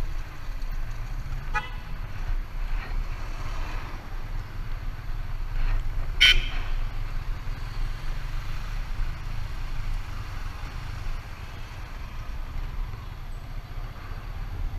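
Steady low rumble of a vehicle on the road, with one short horn beep about six seconds in.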